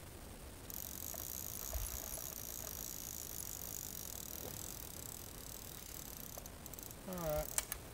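Insects calling in a high, steady chorus that starts about a second in. Near the end a brief sound falling in pitch, then a few sharp clicks.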